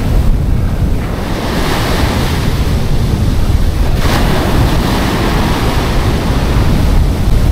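Surf breaking and washing up the beach, its hiss swelling about a second and a half in, with wind buffeting the microphone in a steady low rumble.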